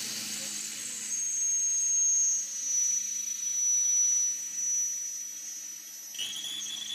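Cordless drill running with a small bit cutting a pilot hole into aluminum plate, giving a steady motor hum and a high-pitched whine. About six seconds in, the whine drops to a lower, wavering tone.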